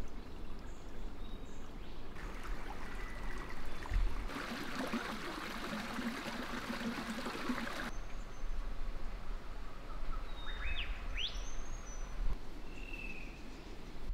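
Forest ambience: a rushing noise swells for several seconds in the middle and stops abruptly. Birds then call with a few quick rising and falling whistles, over a low rumble of wind on the microphone.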